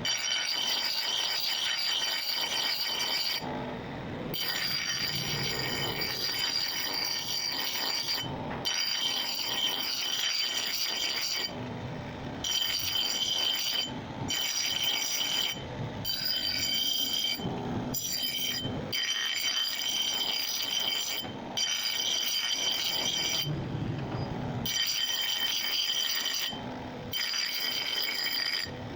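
A power tool grinding metal, with a steady high-pitched whine over a rough hiss. It runs in passes of a few seconds, each broken off by a short gap.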